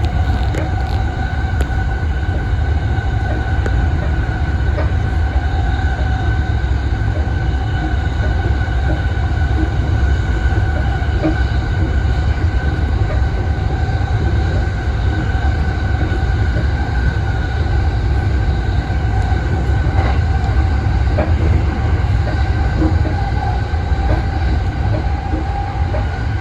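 Inside a JR Sōbu Line (Rapid) electric commuter train running between stations: a steady low rumble of wheels on rails, with a steady whine over it.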